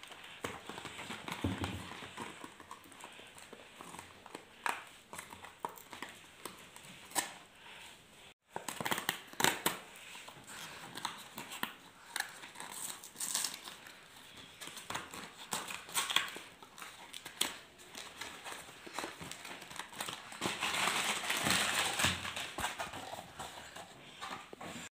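Hands opening a cardboard snack-cake box and handling the plastic-wrapped cakes inside: cardboard scraping and wrappers crinkling in scattered clicks and rustles. There is a brief break about eight seconds in, and a louder stretch of crinkling near the end.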